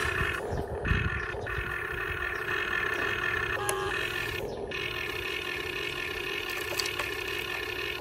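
Huina 1550 RC excavator's electric motors and gearboxes whining steadily as the arm digs, swings and dumps. Rough scraping of the bucket in dirt near the start.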